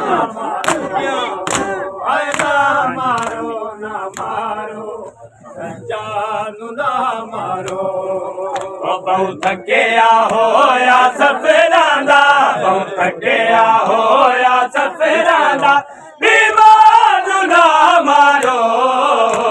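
A group of men chanting a noha (Shia lament) in unison, loud and rhythmic, with sharp slaps of hands beating on chests (matam) mixed in, mostly in the first few seconds. The chant breaks off briefly about five seconds in and again near sixteen seconds.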